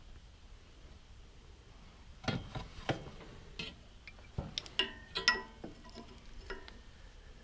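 Loose metal parts and bolts clinking and knocking as they are handled. A dozen or so sharp clinks come after a quiet first two seconds, some with a brief metallic ring.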